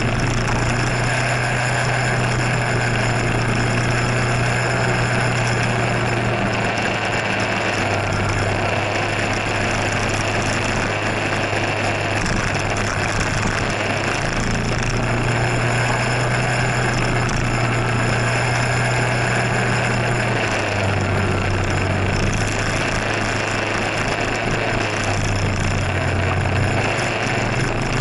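A scooter's small engine running steadily while riding, its low hum stepping slightly up and down in pitch a few times, over a constant rushing noise.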